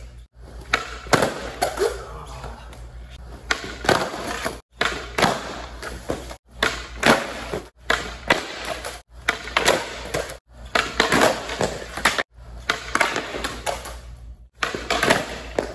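Skateboard wheels rolling on smooth concrete, with repeated sharp clacks of the board popping, flipping and slapping down on the floor during flip-trick attempts. Several brief silent gaps break it up.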